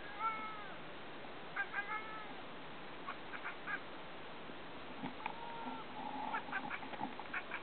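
Ragamuffin cat chattering and chirping at birds it wants to hunt: short pitched chirps mixed with quick runs of clicky chatters, a run about three seconds in and another near the end.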